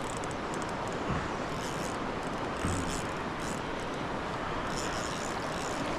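Steady rushing noise of flowing water and light rain, with two soft low thumps about one and nearly three seconds in, and faint high chirping in short bursts.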